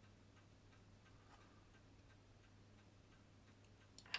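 Near silence over a low steady hum, with faint light ticks, then one sharp small metallic click near the end as a tool touches the parts of a pocket-watch movement being taken apart.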